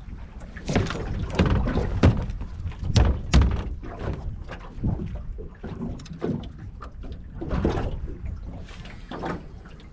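Waves knocking against a small boat's hull as it rocks on the swell, giving a run of irregular thumps and splashy knocks.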